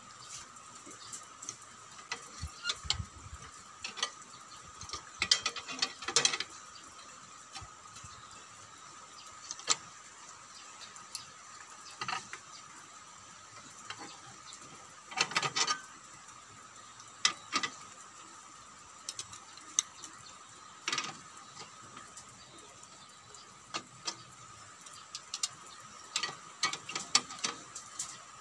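Hand-lever steel ring bending machine shaping rebar stirrups: irregular metallic clanks and clicks as the steel rod is fed into the die and bent around it, some coming in short rattling clusters.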